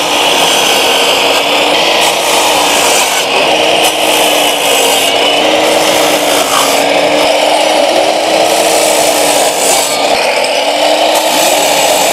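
A TNT TC-0840L 8-inch compound miter saw runs and cuts through a wooden board several times in a row. Its motor hum sags and comes back as the blade bites into the wood.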